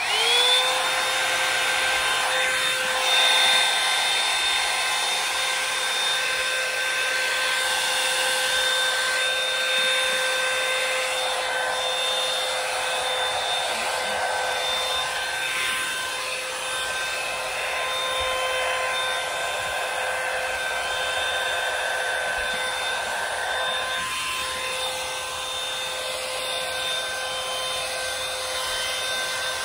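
Bed Head One-Step hot air brush switched on at its cool setting: its motor starts up with a quick rising whine, then runs steadily with the rush of air as it is brushed through the hair.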